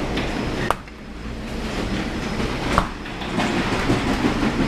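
Rumbling handling noise from a handheld camera, with a sharp knock about a second in as the glass door of a drinks cooler swings shut, and another knock near three seconds.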